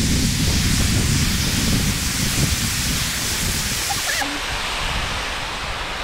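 Wind buffeting the microphone: a loud, steady rushing noise with a deep rumble. About four seconds in come a couple of faint, short high calls.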